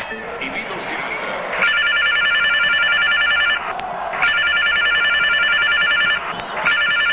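Mobile phone ringing: an electronic trilling ringtone in three rings of about two seconds each, with short gaps between them. The third ring starts near the end.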